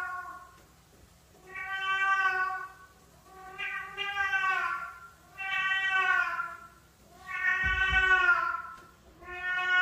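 A cat meowing over and over, each meow long and drawn out, one about every two seconds, with a low bump about eight seconds in.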